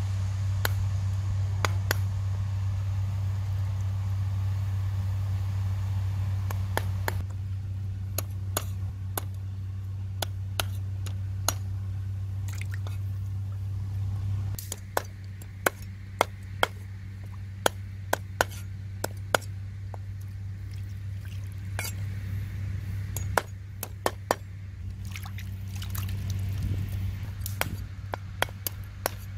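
Cleaver chopping chicken feet on a round wooden chopping block: sharp, irregular knocks about once a second, over a steady low hum.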